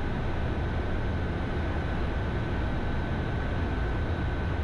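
Steady cockpit noise of an Embraer Phenom 300 twin-turbofan jet in a climb: an even rush of airflow and engine sound, strongest in the low range, with a thin steady high whine running through it.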